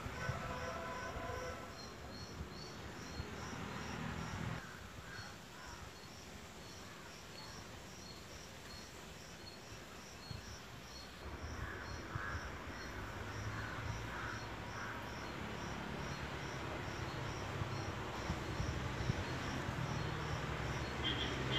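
Insects chirping in a high, even pulse a few times a second. From about halfway a low engine hum builds and grows louder toward the end, like a vehicle approaching.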